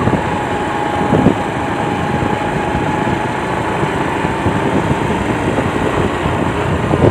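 Motorcycle engine running at a steady cruise with a constant rush of road noise, picked up by a handheld phone's microphone; one brief knock about a second in.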